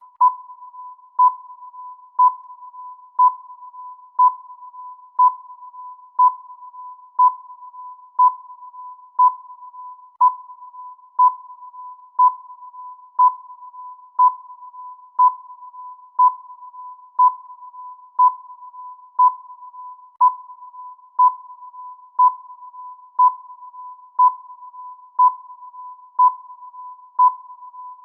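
Electronic countdown-timer sound effect: a louder beep once every second over a softer, steady high tone on the same pitch, marking off each second of the count.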